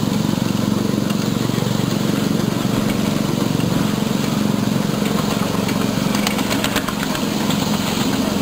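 Ride-on miniature train running along its track: a steady mechanical drone from the locomotive and wheels on the rails, with a short run of light clicks about six seconds in.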